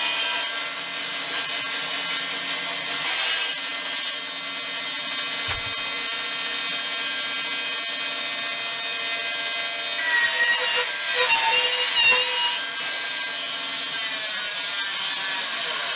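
Bandsaw running and slitting a long strip of wood lengthwise, a steady whine whose pitch wavers for a couple of seconds partway through as the blade is loaded. The cut is a relief kerf in sheer-clamp stock to let it twist and bend.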